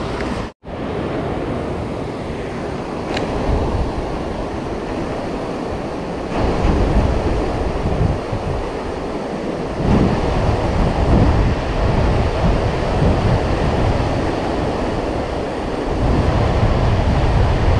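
Steady rush of flowing river water mixed with wind buffeting the microphone in low rumbling gusts. The sound cuts out completely for a moment about half a second in.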